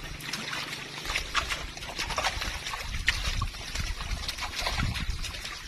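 Irregular wet clicks, flicks and small splashes from a basketful of live prawns jumping against a wet net while a hand picks through it.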